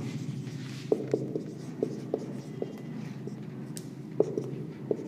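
Marker pen writing on a whiteboard: short, irregular taps and strokes of the tip as numbers are written, over a low steady hum.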